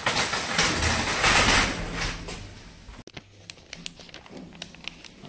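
Plastic supermarket trolley rattling as it is pushed along, loudest in the first two seconds and then dying away; after a sudden cut, scattered light clicks.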